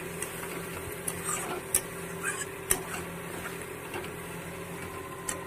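Steel ladle stirring thick masala in a steel kadai, scraping and knocking against the pan in a few sharp, irregular clicks. A steady hum runs underneath.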